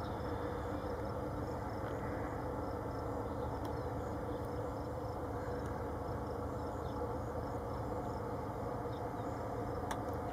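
Steady drone of a Cessna 172RG's piston engine and propeller heard from the ground as the plane flies its landing approach: a low, even hum made of several steady tones.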